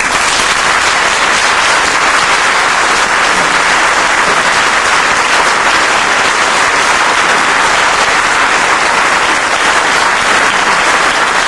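Concert audience applauding, a dense, steady clapping at the close of an orchestral performance.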